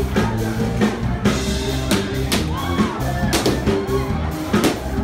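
Loud party music with a steady drum beat.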